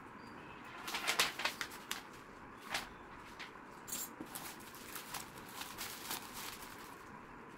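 Packaging being handled by hand: crinkles, rustles and light knocks from a power cord and a thin white protective wrap being lifted out of a cardboard box's moulded pulp tray. A dense cluster of crinkles comes about a second in, then scattered ones.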